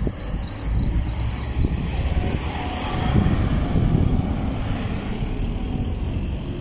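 Road traffic passing close: a small hatchback goes by, then a pickup truck drives past and pulls away, its engine loudest about three seconds in, over a steady low rumble of traffic.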